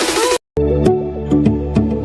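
Background music changing tracks: a dense, busy piece cuts off abruptly less than half a second in. After a split-second of silence, a calmer, sparser piece with clear held notes and light ticks begins.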